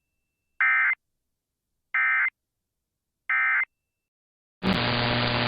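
Emergency Alert System end-of-message signal: three identical short bursts of digital data tones, each about a third of a second and roughly 1.3 s apart, with silence between. Near the end a steady static hiss with a low hum begins.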